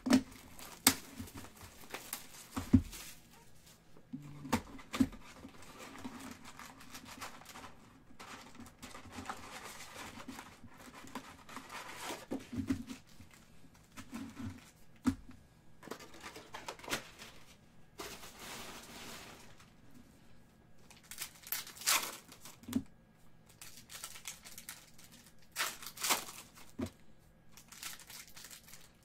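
Cardboard box of Panini Prizm basketball card packs being opened and handled, then the packs' foil wrappers crinkling and one being torn open, with scattered sharp taps and crackly bursts.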